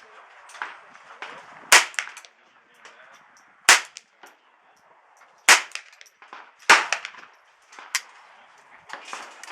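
Ruger 10/22 semi-automatic rifle firing .22 LR rounds one at a time, four sharp cracks about two seconds apart and a lighter one near the end. Fainter gunshots from neighbouring shooters crack in between.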